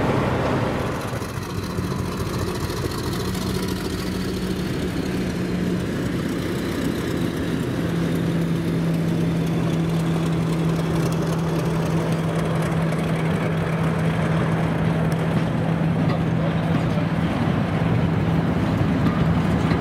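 Diesel locomotive engine running under power, a steady engine note whose pitch steps up about a second in and shifts a few more times.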